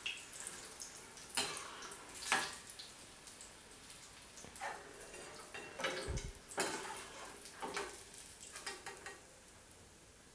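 Faint sizzling of hot oil as battered baby corn pakoras are lifted out of a steel wok with a perforated metal skimmer, with several sharp clinks of the skimmer against the wok and plate and a dull thump about six seconds in.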